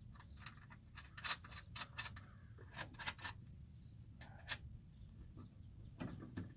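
Irregular metallic clicks and clinks of strut bolts and nuts being handled and started by hand while a new front strut is installed, a dozen or so light taps scattered through, some briefly ringing.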